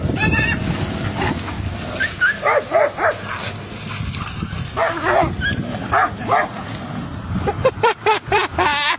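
A dog barking and yelping over and over as it fights a pig, over a rough, steady scuffling noise.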